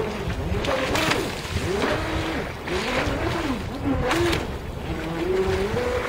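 Brushless electric motor of an RC Turbo Vee II speedboat whining as the boat runs on the water, its pitch repeatedly rising and falling with throttle and turns, with brief hisses of spray about a second in and again about four seconds in.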